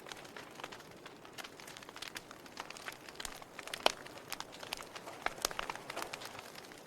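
Wood fire crackling in a fireplace: irregular sharp pops and snaps over a soft hiss, with one louder pop about four seconds in.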